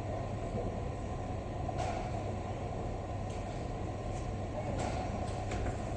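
Steady low rumble of a bowling alley, bowling balls rolling on the lanes, with a few faint knocks.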